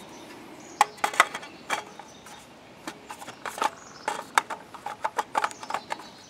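Rifle magazines being picked up and handled: a string of irregular sharp clicks and clacks.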